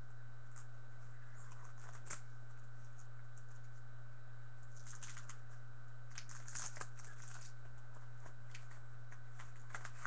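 Computer keyboard and mouse being used: scattered light clicks and two short runs of rapid tapping, about five seconds in and again around seven seconds, over a steady low hum and a faint high whine.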